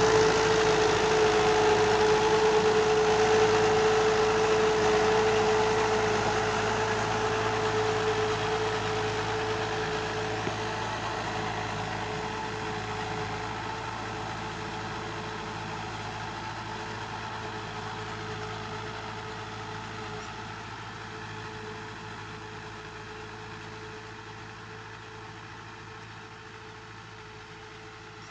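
Fiat 640 tractor's four-cylinder diesel engine running steadily while it pulls a disc harrow, fading away gradually as the tractor drives off across the field.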